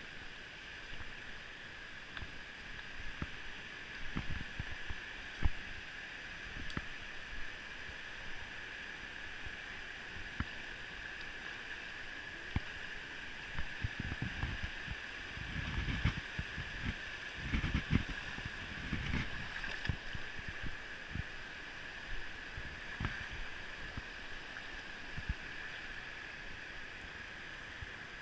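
Shallow river water rushing and gurgling over rocks and small rapids, a steady wash. Irregular low bumps and rumbles on the microphone run over it, heaviest about halfway through.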